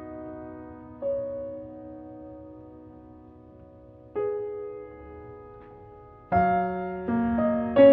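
Soft background piano music: slow chords that ring on and fade, struck about a second in and again about four seconds in, then louder, quicker notes from about six seconds on.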